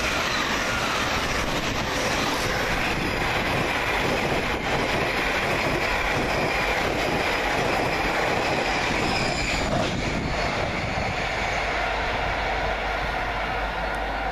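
Two electric trains passing through at speed on adjacent lines, a GWR Class 800 intercity unit and a Class 345 multiple unit: a steady rush of wheels on rail with some clickety-clack and a faint steady whine, easing slightly near the end.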